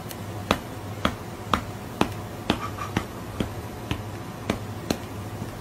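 A run of sharp snapping clicks, roughly two a second, over a low steady hum.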